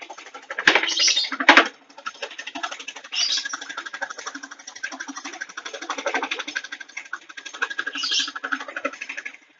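Scroll saw cutting a wooden board along a paper pattern: a fast, even rattle from the up-and-down blade, louder for a moment about a second in and again near the end.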